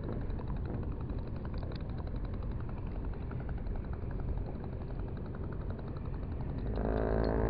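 A small fishing boat's engine idling, a steady low rumble with a fast, regular knock. Near the end a louder, steadier drone joins in.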